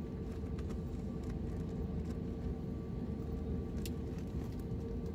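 Cabin noise of an Airbus A320neo with CFM LEAP-1A engines on final approach: a steady low rush of engine and airflow noise with a constant mid-pitched hum, heard from a window seat over the wing.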